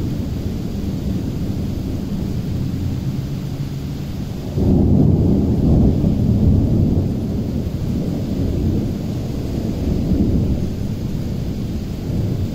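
Thunder rumbling steadily; about four and a half seconds in it jumps suddenly louder and rolls for a couple of seconds, then swells again about ten seconds in.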